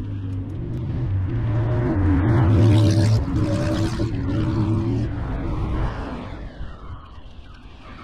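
A motor vehicle passing close by: engine hum and tyre noise swell to a peak about three seconds in, then fade away.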